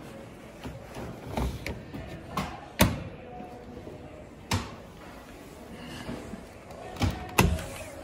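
Plastic parts of a Beko front-loading washing machine being handled: a series of sharp clicks and knocks as the detergent drawer is pushed shut and the porthole door latch is pulled open. The loudest knocks come near three seconds in and just after seven seconds.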